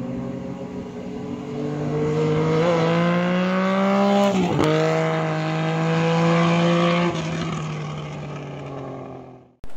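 A vehicle engine accelerating, its pitch climbing steadily, dipping briefly at a gear change about four and a half seconds in, then climbing again before it fades away and cuts off near the end.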